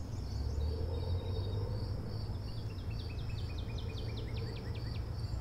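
Outdoor ambience: an insect trilling in steady high pulses, about two to three a second, over a low rumble. About halfway through, a bird joins with a quick run of chirps that stops near the end.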